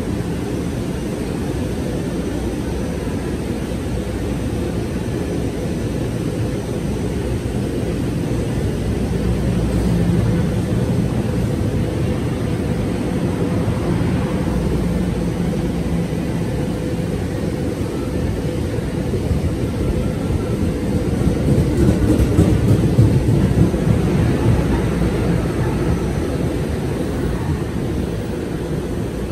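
NJ Transit bilevel passenger coaches rolling past close by: a steady low rumble of wheels on rail that swells about three-quarters of the way through, then eases as the train pulls away.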